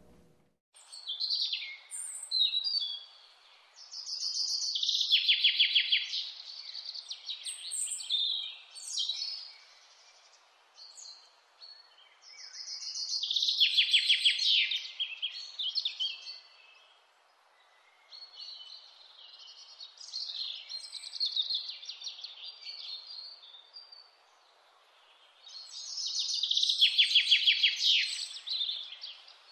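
Wild mountain songbirds singing: a loud song phrase ending in a fast, falling trill comes three times, about ten seconds apart, with scattered shorter chirps between, over a steady faint hiss.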